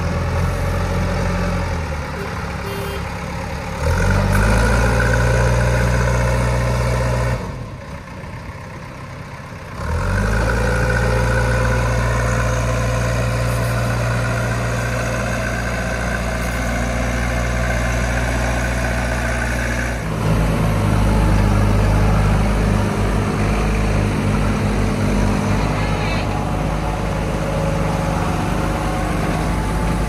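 Diesel engines of a JCB 3DX backhoe loader and a Tata tipper truck running, the backhoe's engine changing speed in steps as it works its front loader bucket. The engine note steps up about four seconds in and drops briefly near eight seconds. It shifts to a rougher, pulsing note about twenty seconds in.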